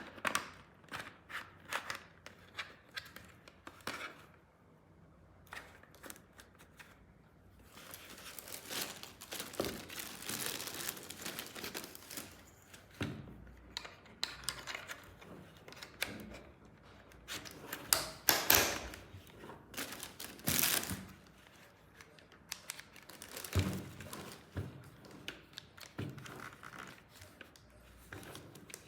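Plastic packaging crinkling and rustling as it is handled and torn open, with irregular clicks and a few louder knocks of hard plastic parts being handled.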